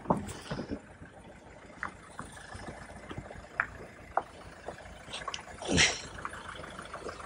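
Mahindra Scorpio SUV creeping toward the microphone on a rough dirt track: a faint low diesel engine rumble and tyre crunch on dirt, with scattered small clicks and a short louder swish about six seconds in.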